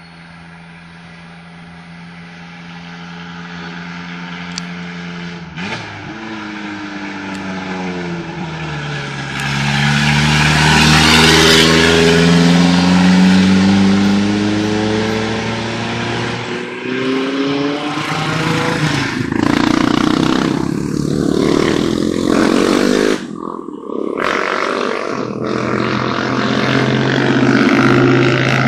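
A hill-climb race car's engine approaching and getting louder, then revving hard, its pitch dropping and climbing again several times as it brakes, shifts and accelerates. About two-thirds of the way through, the sound drops out for a moment as the driver lifts off, then climbs again.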